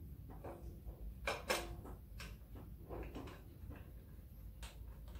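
A few light knocks and clicks of metal parts as an auxiliary belt tensioner is placed onto the front of a Puma 2.4 TDCi diesel engine, the two loudest close together a little over a second in.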